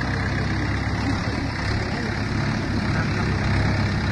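Swaraj farm tractor's diesel engine running steadily at low revs, with people's voices mixed in.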